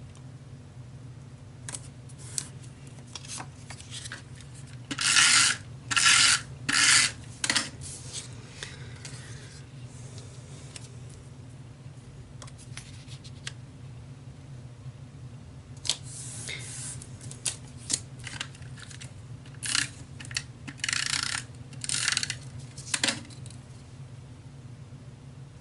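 Paper-crafting work at a table: short rasping strokes of paper being handled and worked, four in quick succession about five seconds in and another run of them from about sixteen to twenty-three seconds in, over a steady low hum.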